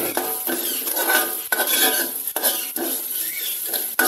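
A metal spoon stirring and scraping onions and spice powders around a hot metal pan, about two strokes a second, each stroke making the pan ring briefly, with the oil sizzling underneath.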